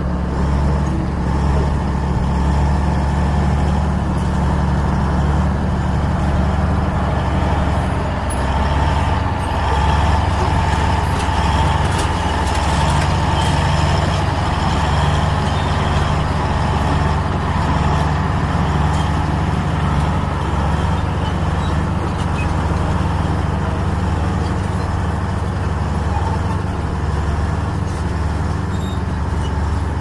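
Bulldozer's diesel engine running steadily at a constant pitch.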